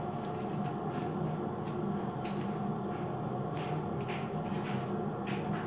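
A steady low machine hum, like a fan or air conditioner, with a scattering of faint short clicks and ticks from handling.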